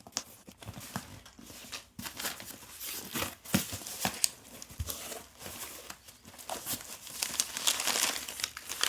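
A shipping box being opened by hand: irregular tearing and crinkling of tape and packaging, with scattered sharp cracks and rustles.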